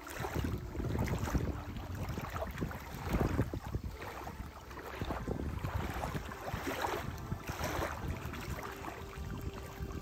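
Wind gusting over the microphone in uneven surges, with water lapping at the shore underneath.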